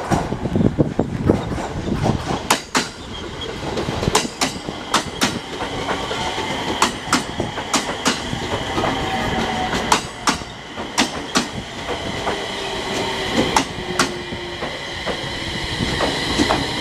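JR East 701 series electric multiple unit pulling into the platform: its wheels click over the rail joints, often in pairs, as the cars pass close by. A slowly falling motor whine and a high steady squeal that grows toward the end mark it slowing to stop.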